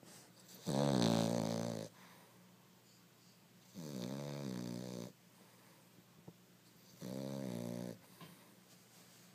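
French bulldog snoring: three snores about three seconds apart, each roughly a second long, the first the loudest.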